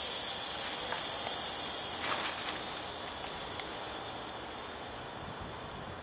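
Trane heat pump just shut down by a forced defrost: a hiss that fades steadily over several seconds as the refrigerant pressures equalize.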